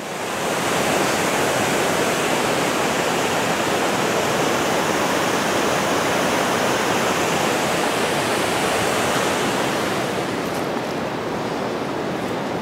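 Steady rush of fast-flowing water in a gorge, even and unbroken, easing off a little about ten seconds in.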